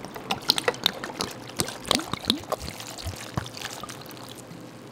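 Chili peppers tipped into a container: an irregular scatter of small knocks and clicks that thins out after about three and a half seconds.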